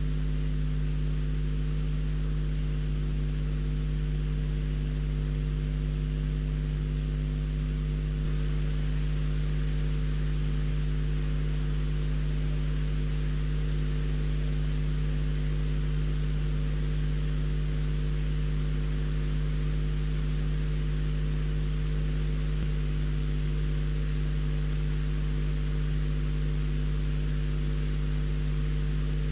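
Steady electrical hum made of several low, evenly spaced tones, under a constant hiss; a faint high-pitched whine stops about eight seconds in.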